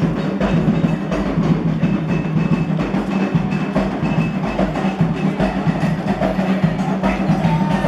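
Candomblé ritual percussion: atabaque hand drums and a struck bell playing a fast, steady rhythm.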